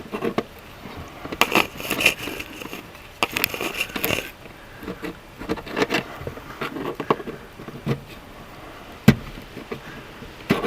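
Hands working on wiring in a truck's engine bay: scattered clicks, scrapes and rustling, with a sharper click about nine seconds in.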